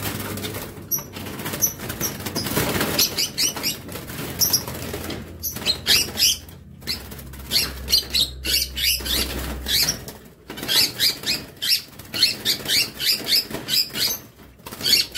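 Lovebirds flapping their wings in a wire cage, disturbed by a hand reaching in to catch a young bird. From about five seconds in, there are rapid short, high chirps, several a second.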